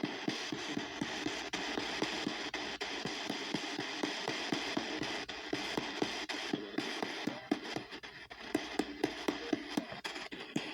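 P-SB7T spirit box sweeping the AM band, a continuous hiss of radio static chopped into short clicks and fragments of broadcast sound several times a second as it jumps between stations every 250 ms.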